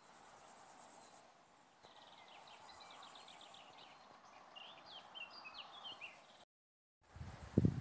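Outdoor summer ambience: a steady, pulsing high-pitched insect chirring under a songbird singing short phrases of quick notes. Near the end the sound cuts out for half a second, then a few low thumps follow.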